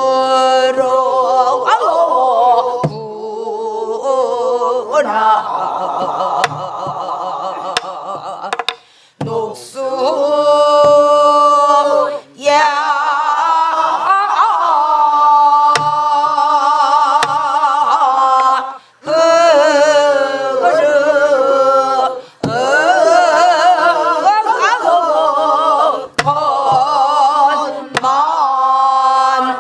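A mixed group of men and women singing a Namdo folk song (Korean southern-style minyo) in unison, led by the teacher. Long phrases with a heavily wavering, shaken pitch are broken by short breaths, with a few single buk drum strokes at the phrase breaks.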